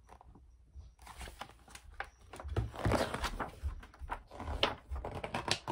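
Paper rustling and crinkling with soft taps and clicks as a picture book's pages are handled and turned, starting about a second in.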